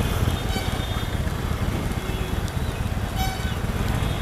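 Harley-Davidson Sportster 883's air-cooled V-twin running at low speed as the bike creeps through slow traffic, with tyre and rain noise from the wet road.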